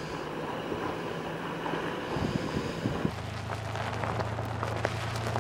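Toyota Hilux 4x4 pickup's engine running steadily as it drives over a rocky gravel track, with wind noise. About three seconds in, the sound changes to a steadier, deeper hum.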